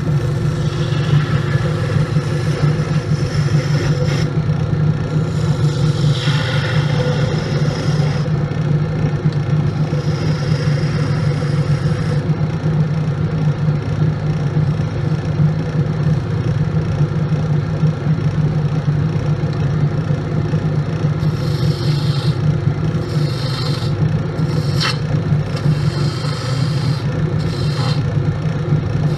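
Wood lathe running with a steady motor hum while a hand-held turning tool scrapes and cuts into the spinning wood, the hiss of the cut coming and going: it runs through the first dozen seconds, drops back, and returns in the last third.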